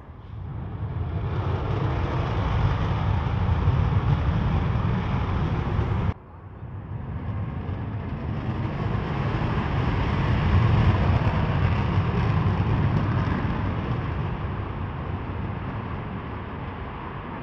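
F-15E Strike Eagle jet noise from its twin engines in afterburner at takeoff: a loud, deep, steady rumble with a hiss above it, building over the first two seconds. It cuts off abruptly about six seconds in, then a second F-15E's afterburner takeoff run builds up again and slowly fades near the end.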